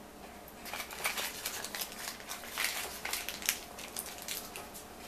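Butter wrapper being crumpled by hand: a run of quick, irregular crinkles and crackles lasting about four seconds.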